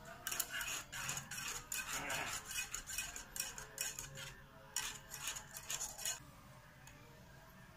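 Wire balloon whisk stirring a thin coconut-milk mixture in a small stone-coated saucepan, its wires clinking and scraping rapidly against the pan. The whisking stops about six seconds in.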